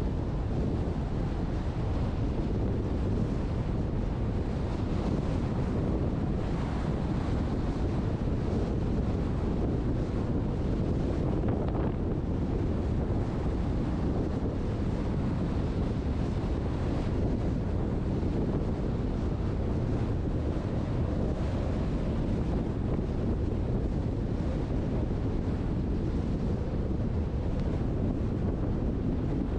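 Steady wind rushing over a truck-roof-mounted GoPro's microphone as the truck drives.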